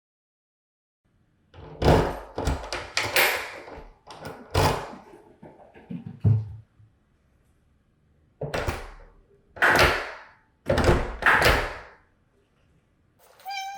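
A run of thuds and rattling knocks lasting about five seconds, then after a short pause three or four more heavy thuds.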